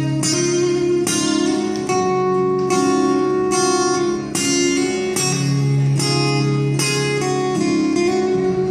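Acoustic guitar strummed in sustained chords, a strum a little more than once a second, with no singing over it.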